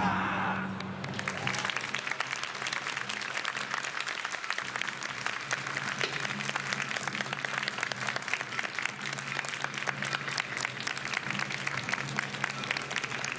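Audience clapping steadily as the last taiko drum stroke dies away in the first second.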